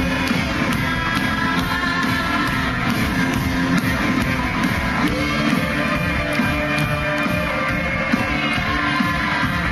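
Live pop-rock band playing loud amplified music at a steady level, with a regular beat throughout.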